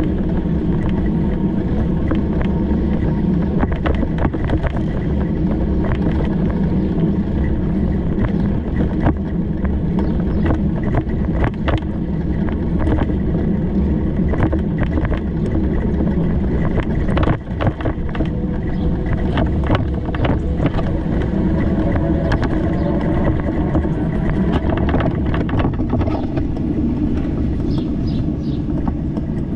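Steady low rumble of road and wind noise from riding a bicycle, with scattered short clicks and rattles throughout.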